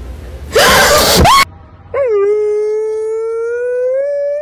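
A loud, harsh burst of noise about half a second in, lasting under a second and ending in a quick rising squeal. Then, from about two seconds in, a husky howls one long howl that climbs slowly in pitch.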